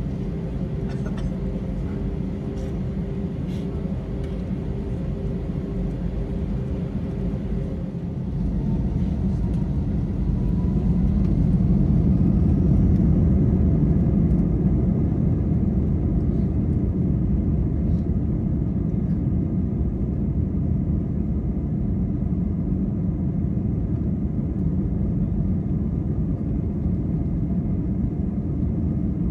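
Airbus A320's IAE V2500 engines heard from inside the cabin: a steady hum with a few held tones, then about eight seconds in the engines spool up to takeoff thrust with a faint rising whine. It settles into the loud, even rumble of the takeoff roll along the runway.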